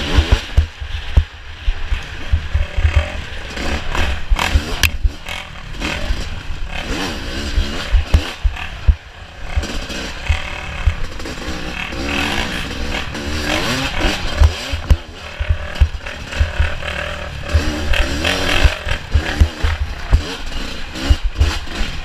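Off-road racing motorcycle engines revving up and down, with frequent low thumps.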